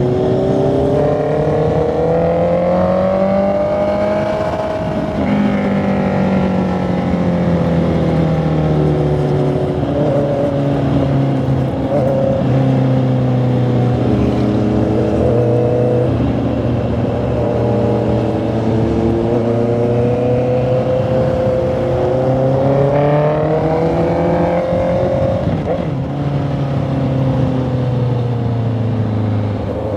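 Honda CB650R inline-four motorcycle engine and exhaust under way, its pitch rising as it pulls and dropping suddenly at each of several gear changes, with long climbs in the first few seconds and again in the back half.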